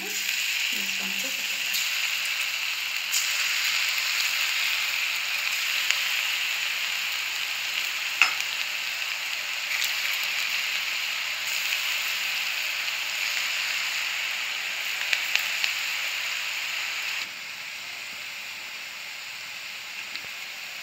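Bread pakodi fritters deep-frying in hot oil in a kadhai: a steady sizzle with scattered pops, turning quieter about seventeen seconds in.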